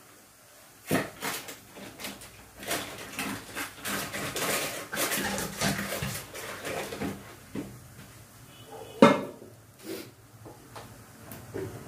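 Kitchen clatter: metal utensils and dishes knocking and clinking in a run of sharp clicks, with one loud clack about nine seconds in.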